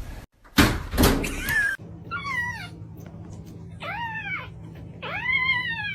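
A cat meowing three times, each call rising and then falling in pitch, the last one the longest. It comes after a loud, rushing noise in the first second or two.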